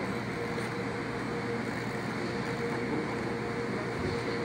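Steady machine hum, a constant mid-pitched tone over an even whir, from the powered-up electric servo press brake and its surroundings; no separate sound of the slow ram movement stands out.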